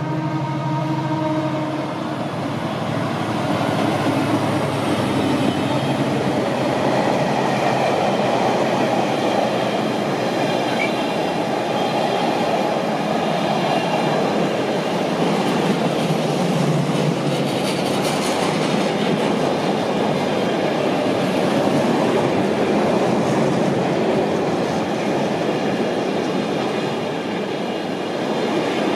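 Diesel freight locomotive passing close by: its engine's drone is heard at first. It gives way to a long, steady rumble and rattle of container wagons rolling over the rails.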